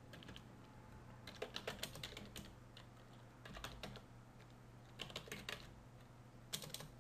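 Computer keyboard being typed, faint keystrokes coming in several short bursts with pauses between, over a low steady hum.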